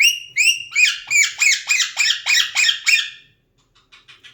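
Alexandrine parakeet giving a rapid run of about ten harsh squawks, roughly three a second, that stops about three seconds in, followed by a few faint clicks.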